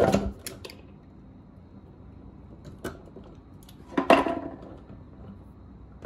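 Handling noise from wire strippers and a bare copper ground wire being worked by hand: a few faint clicks and one louder clack about four seconds in.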